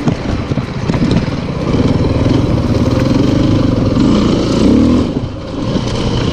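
Enduro motorcycle engine running and revving, its pitch rising and falling about four seconds in before it eases off briefly.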